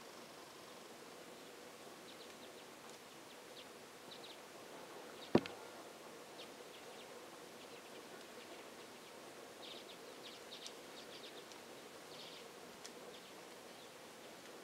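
Faint, quiet woodland ambience with scattered soft ticks and snaps, and one sharp click about five seconds in.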